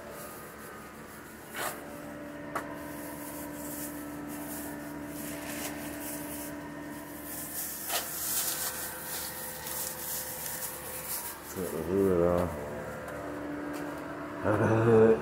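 Rubbing and scraping on a car's body panel during bodywork, with a few sharp knocks, over a steady hum.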